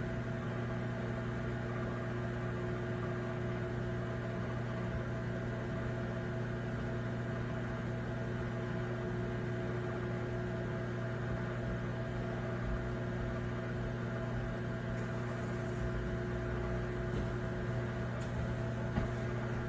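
Steady low hum of an appliance or fan running, unchanging throughout, with a couple of faint clicks near the end.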